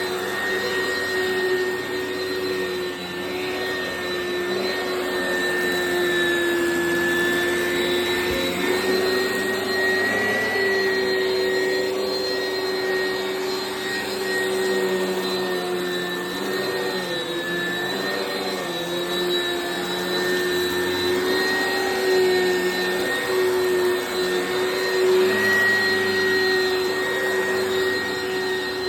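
Oreck XL Commercial upright vacuum cleaner running steadily, a continuous whine whose pitch wavers slightly as it is pushed back and forth.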